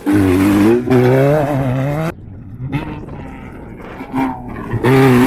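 Off-road race vehicle's engine at full throttle, its note wavering up and down, then cutting off sharply about two seconds in as the throttle is lifted. It comes back on hard near the end.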